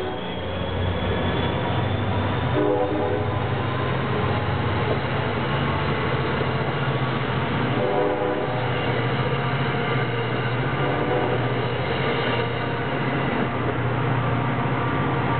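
NJ Transit EMD GP40 diesel locomotive and train running steadily, with short horn blasts about two and a half, eight and eleven seconds in.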